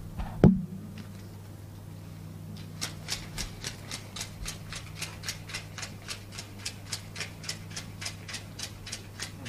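Banknotes counted by hand, each note flicked with a crisp snap, about four a second from a few seconds in, over a low steady hum. A single sharp knock about half a second in.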